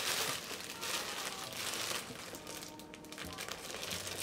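Clear plastic polybag crinkling as it is handled and picked open, loudest in the first couple of seconds, with more crinkles near the end.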